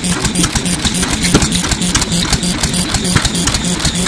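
1930s SYOKI 3.5 hp stationary oil engine running at a steady pace, with a low, regular beat and fast, even clicking from its valve and trip-lever linkage.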